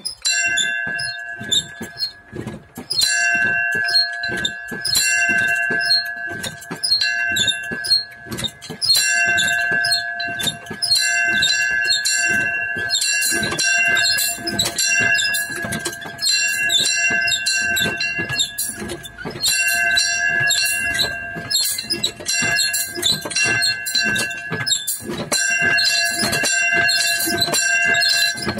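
Small chapel bell rung by hand with a pull chain, swinging so that its clapper strikes again and again in an even rhythm, with a few short gaps in the first seconds. It rings with a high, bright tone, which the ringer takes to be about f³.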